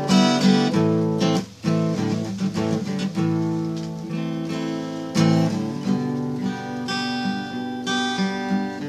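Acoustic guitar music, strummed and picked chords, with a brief drop in level about one and a half seconds in.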